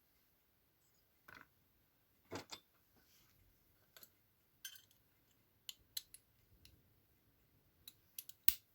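Scattered light clicks and short scrapes, irregularly spaced, from a bare metal die-cast model car body being handled and worked with a sanding stick; the sharpest click comes near the end.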